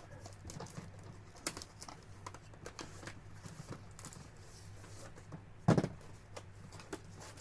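Cardboard model-kit box being opened and handled: scattered light taps and rustles, with one louder knock about three quarters of the way through.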